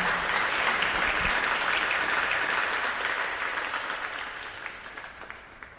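Live audience applauding, the applause thinning out over the last couple of seconds to a few scattered claps.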